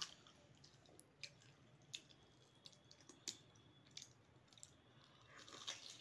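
Faint eating sounds of golgappa (pani puri): scattered small clicks and wet mouth sounds, then a crunchy bite into the puri shell near the end.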